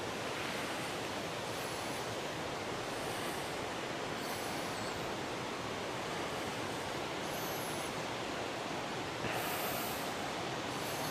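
Steady rush of the fast-flowing Katun River. Faint high chirps come through about four times, and a brief louder hiss of noise rises about nine seconds in.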